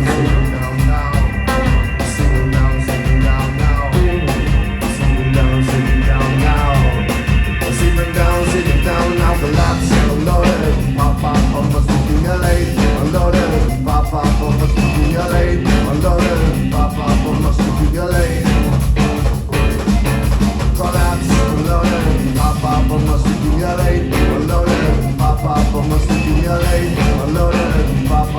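Live rock band playing loudly: drums and bass, with sustained high held tones over them for the first several seconds before the playing grows denser.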